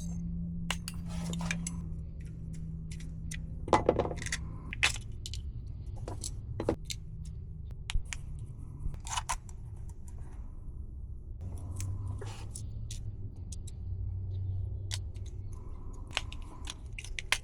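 Scattered small clicks and metallic clinks of a Toyota car key and its parts being handled as it is moved into a new key shell, over a steady low hum.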